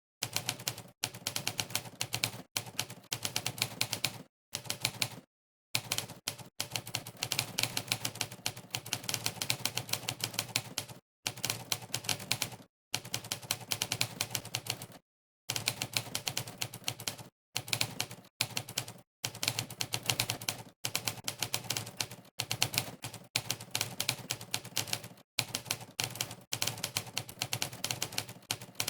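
Monkeytype's typewriter keypress sound effect: fast runs of typewriter key clacks, many per second, broken every second or two by short dead-silent pauses.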